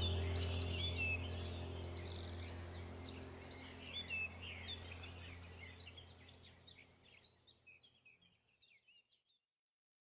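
Small songbirds chirping and twittering over a low steady drone. Both fade out gradually to silence about seven seconds in.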